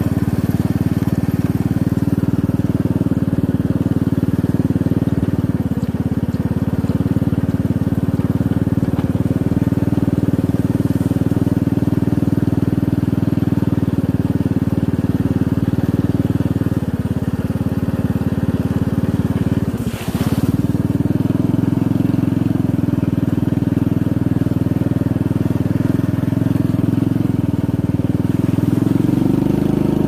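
Motorcycle engine running steadily while riding along a dirt track. The engine sound dips briefly about two-thirds of the way through, and its pitch rises near the end.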